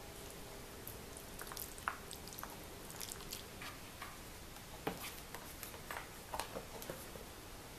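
Metal ladle scooping soft cooked azuki beans from a clay donabe pot, with faint wet squishes and scattered light taps, then a plastic container lid being pressed into place with a few clicks.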